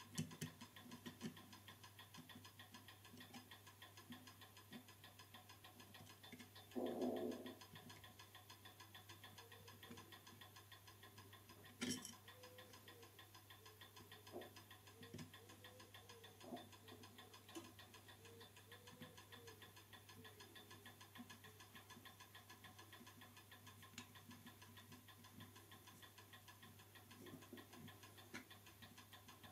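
Faint, fast and even clock ticking, about four or five ticks a second, with a muffled knock about seven seconds in and a sharp click about twelve seconds in from small parts being handled.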